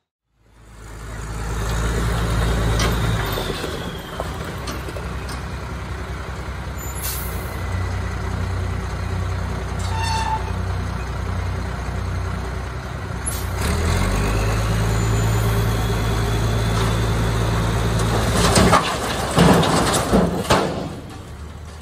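International 10-ton dump truck's diesel engine running while the hydraulic hoist raises the loaded dump bed; the engine gets louder about two-thirds of the way through. Near the end, broken concrete slabs slide out of the tipped bed and crash down in a run of loud knocks.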